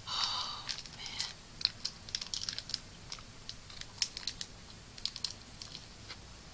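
Plastic candy wrapper crinkling and crackling close to the microphone as it is handled and opened, in a quick run of irregular sharp clicks.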